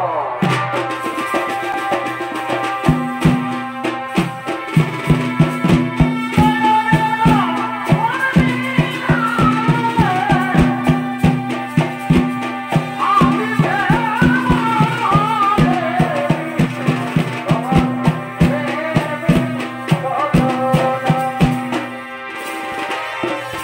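Chhau dance music: drums beating a steady run of strokes under a held drone and a wavering, ornamented melody. The drums come in about three seconds in.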